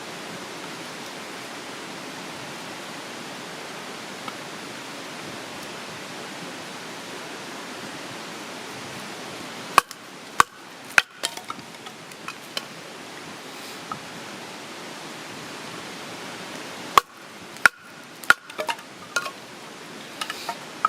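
A steady rushing hiss, with two clusters of sharp clinks and knocks: one about halfway in and another near the end.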